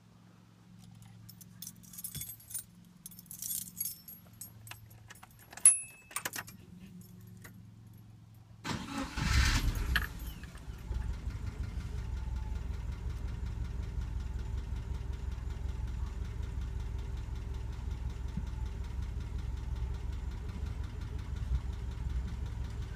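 Inside the cabin of a 1988 Subaru XT, keys jangle and click in the ignition; about nine seconds in the starter cranks briefly, the engine catches, and it settles into a steady idle.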